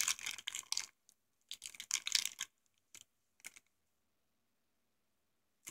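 Thin plastic blind bag holding a mystery-mini figure crinkling as it is squeezed and handled, in a few short bursts, with a couple of faint clicks after them.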